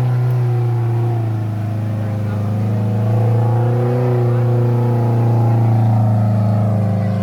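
Off-road vehicle engine running steadily at a fairly constant speed, its pitch wavering slightly; it cuts off suddenly at the end.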